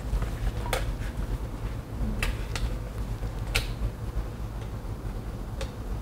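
Screwdriver clicking against the screws and plastic frame of a wall switch as it is unscrewed: three sharp clicks about a second and a half apart, and a fainter one near the end.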